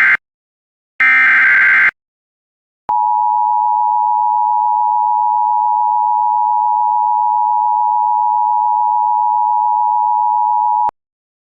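Emergency Alert System tones: the end of one screechy SAME header data burst and a second full burst, then, after a second's pause, the two-tone EAS attention signal held steady for about eight seconds and cutting off sharply. The sequence marks the start of a new alert.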